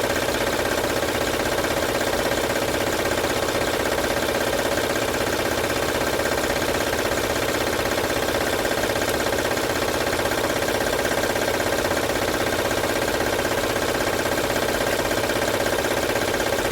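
2006 Honda Odyssey's V6 engine running steadily with a strong rattle from the timing belt side. The mechanic traces it to a loose, flapping, badly fitted timing belt.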